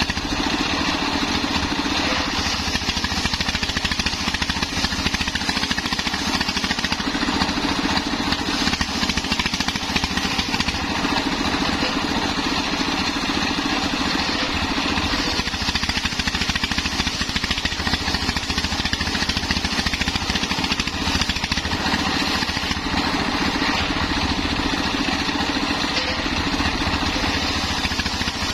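Stationary diesel engine running steadily under load, belt-driving a homemade circular saw bench that rips a waru (sea hibiscus) log into battens. The saw's cutting noise swells and eases every few seconds as each pass goes through the wood.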